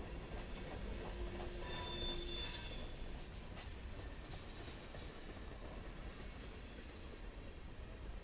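Freight cars of a Union Pacific manifest train rolling past with a steady low rumble, and a brief high-pitched wheel squeal about two seconds in.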